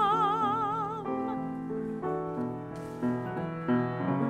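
A soprano holds a sung note with wide vibrato that ends about a second in. Then the piano plays alone, a moving line of notes that changes every few tenths of a second.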